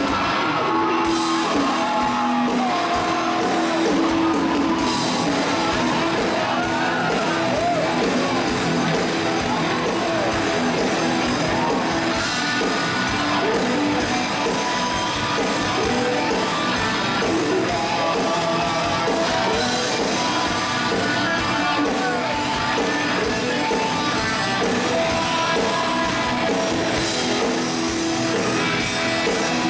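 Live rock band playing in a large hall, an electric guitar to the fore, with a man's voice singing and shouting into a microphone over it.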